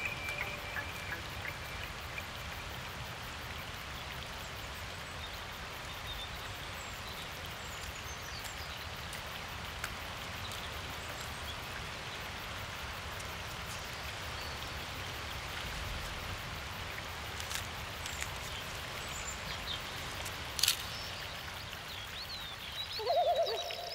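Steady watery hiss of forest ambience, like rain or running water, with faint scattered bird chirps. One sharp click comes near the end.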